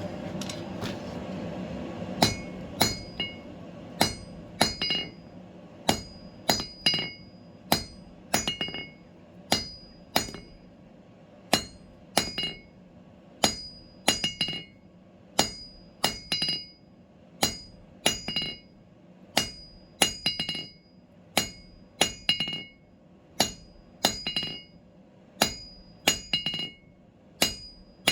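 Blacksmith's hand hammer striking steel on an anvil in a steady working rhythm, the blows often in quick pairs, each leaving a bright metallic ring.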